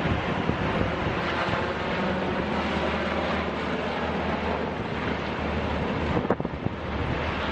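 Wind rushing over the microphone over a steady low rumble, with a brief knock and dip about six seconds in.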